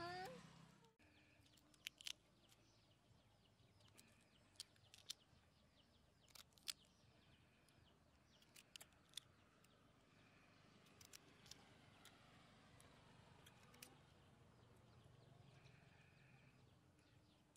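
Faint, irregular clicks and soft crunches of a kitchen knife cutting through noni fruit in the hand. A short gliding call sounds right at the start.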